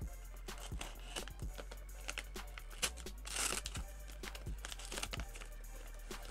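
A mailing package being cut and torn open by hand: a run of small clicks, scrapes and crinkles, with a longer ripping sound about three and a half seconds in. Music plays behind it.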